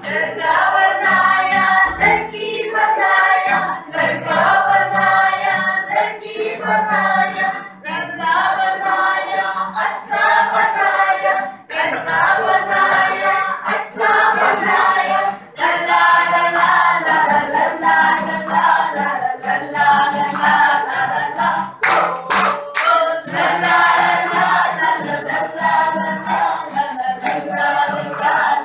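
A group of voices singing together, with hand claps.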